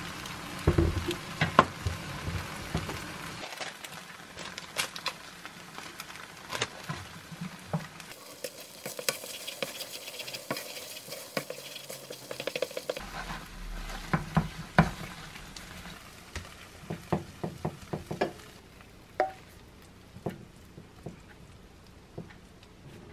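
Thick crab and egg rice porridge sizzling in a nonstick frying pan while a spatula stirs it, with many short scrapes and knocks of the spatula against the pan. The stirring sounds thin out towards the end, as the porridge is scooped into a ceramic dish.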